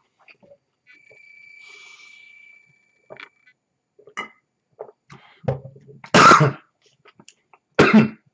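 A man swallowing from a plastic drink bottle with small faint gulps, then coughing hard twice, the louder cough about six seconds in and another near the end.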